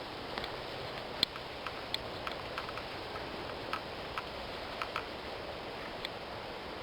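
Scattered short, sharp clicks at irregular intervals over a steady outdoor hiss.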